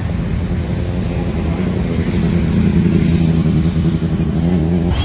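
Road traffic passing close through a city intersection: a van and then a motorcycle, a steady engine drone that grows louder past the middle and stops suddenly at the end.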